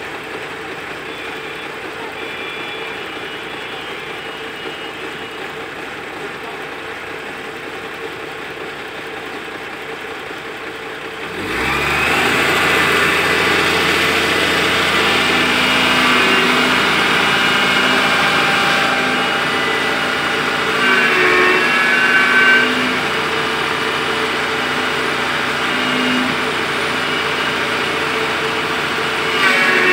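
Excavator engine running steadily, then about a third of the way in it rises to a louder, busier working sound with a higher whine, the machine under load.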